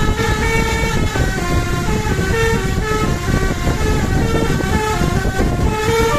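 Basuri telolet horn on an Indonesian bus playing a tune of stepped notes, changing pitch every fraction of a second, over heavy low engine and road rumble.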